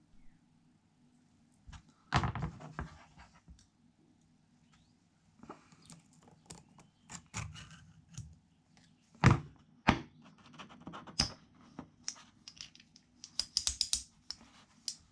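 Small metal clicks, scrapes and light knocks of steel gearbox parts being handled: a circlip being fitted onto a pit bike gearbox shaft with circlip pliers, and the gears and shaft knocking together. The loudest knocks come about two seconds in and again around nine seconds in, with a run of quick small clicks near the end.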